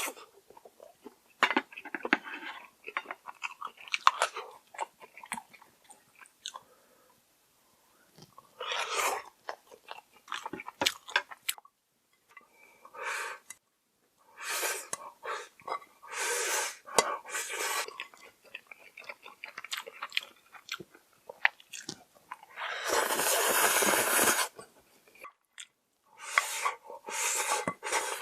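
Close-up eating sounds of a person chewing and biting into instant noodles and side dishes: many short wet mouth clicks, broken three or four times by louder noisy stretches of a second or two, like noodles being slurped.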